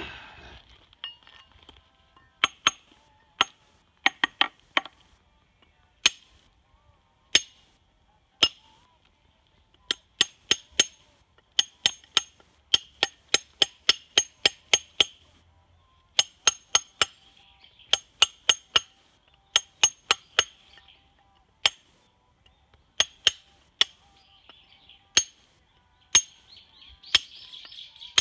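Hammer striking a rough block of Kyoto natural whetstone (sudo stone): sharp, ringing clinks in irregular runs, at times three or four blows a second. The stone is being knocked to hear its ring and split along its weakest layers.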